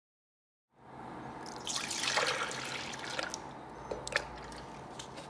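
Double cream poured from a plastic container into a stainless steel bowl: a splashing pour that starts about a second and a half in and tails off, followed by a couple of light clicks.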